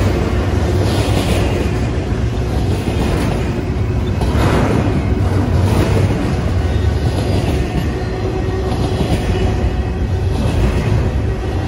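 Double-stack intermodal freight train rolling past close by: a steady, loud rumble and rattle of steel wheels on the rails and the well cars, swelling briefly about a second in and again around four and a half seconds in.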